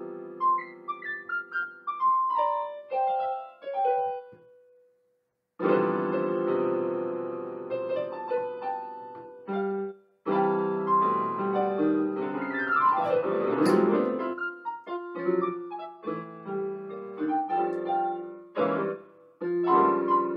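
Solo piano music played on a portable electronic keyboard with a piano voice. A descending run of notes dies away into a second of silence about five seconds in, then full chords resume, with a fast run sweeping down the keys about thirteen seconds in.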